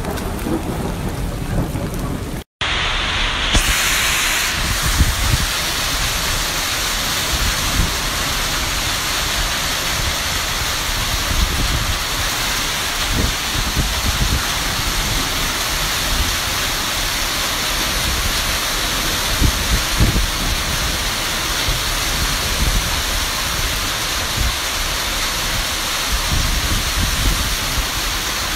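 Heavy downpour: a dense, steady hiss of torrential rain, with irregular low thumps underneath. The sound drops out for a moment about two and a half seconds in, then carries on.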